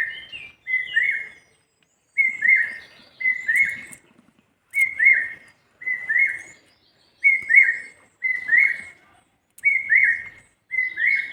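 A bird calling over and over: the same short, clear whistled note repeated about once a second, each note with a quick double rise, about ten times.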